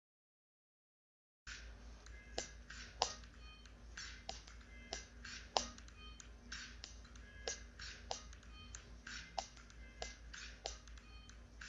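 Dead silence for about a second and a half, then faint music with many sharp, irregularly spaced plastic clicks and clacks, typical of a beaded kandi cube poi rattling as it is swung.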